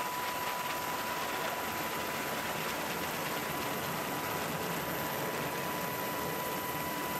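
Steady roar of an F-35C's single Pratt & Whitney F135 jet engine as the fighter climbs away after a carrier catapult launch. A steady high thin tone runs under the roar.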